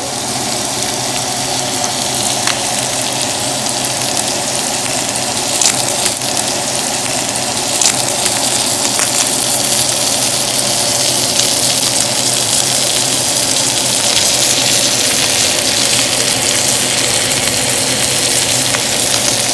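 T-bone steak and sliced onions sizzling in a hot pan: a steady frying crackle with a few louder pops.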